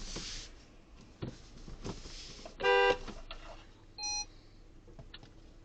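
A car horn honks once, short and loud, a bit before the middle; about a second later comes a shorter, thinner beep, over low road and car noise.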